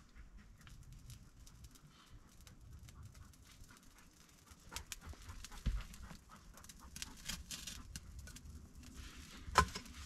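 Dry tinder and twigs crackling and rustling as a small fire is lit and fed, with a dull thump about halfway and a sharp snap near the end. A dog pants.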